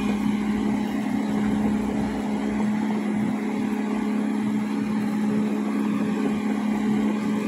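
Tracked excavator's diesel engine running with a steady, even hum.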